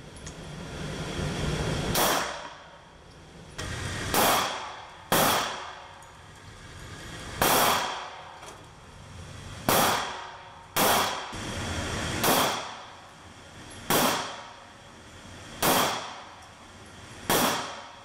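Handgun shots fired one at a time at an indoor shooting range: about ten sharp reports, one every one to two seconds, each with a short echo off the range walls.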